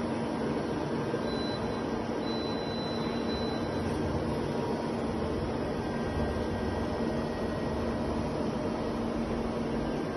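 Steady hum and hiss of a powered-up Okuma Genos L300 CNC lathe, with a low drone at one pitch. About a second in, a faint high tone sounds for about two seconds.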